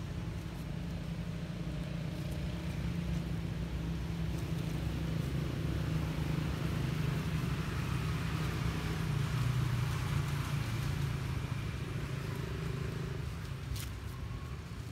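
Low, steady rumble of a motor vehicle, growing louder toward the middle and easing off near the end, with one sharp click shortly before the end.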